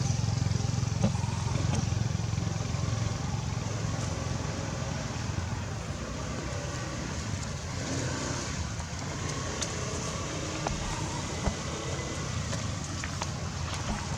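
Low rumble of a motor vehicle engine that fades over the first several seconds, with steady outdoor background noise.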